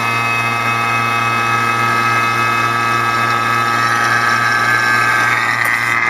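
HVAC vacuum pump running steadily under load, a constant low hum with higher whining tones above it. It is early in the evacuation of an R410a heat pump system, with the vacuum gauge still off the top of its scale.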